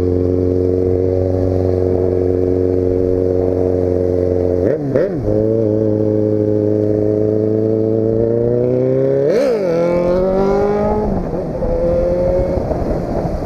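Motorcycle engine running steadily on the road, its pitch dipping sharply and recovering twice, about five and about nine seconds in. Near the end the engine tone fades under wind noise.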